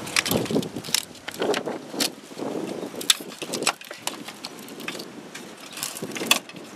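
Wiring harnesses and plastic connectors being handled and shifted in an engine bay: rustling with scattered sharp clicks and taps as the wires and a module's metal bracket are moved.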